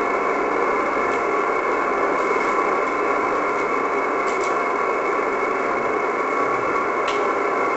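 Steady hiss of static from a 2 m FM amateur radio receiver on 145.800 MHz with its squelch open. No signal from the ISS is being received yet, because the station has not risen above the horizon.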